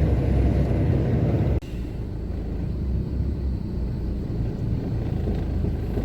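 Truck cab noise while driving: a steady low engine and road rumble that cuts off abruptly about one and a half seconds in, after which a somewhat quieter low rumble continues.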